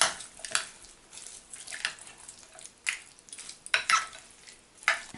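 A spoon stirring curd rice (cooked rice mixed with yogurt) in a bowl, with a handful of short, irregularly spaced clicks and scrapes of the spoon against the bowl.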